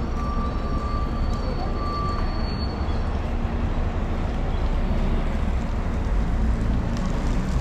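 Outdoor city street ambience: a steady low rumble of traffic, with a thin high whine for about the first two seconds.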